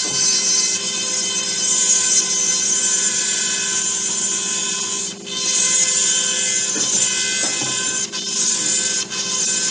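Dental straight handpiece on a micromotor running a bur against an extracted third molar: a steady whine with a high grinding hiss, dipping briefly about five seconds in and again near the end.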